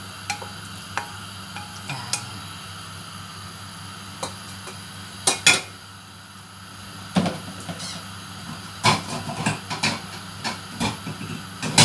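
Wooden spoon and stainless steel bowl clinking as coconut strips are scraped into a pot of water, then a sharp double clatter about five seconds in as the metal bowl is set down on the gas stove's grate. More scattered knocks and clinks of kitchenware follow, over a steady low hum.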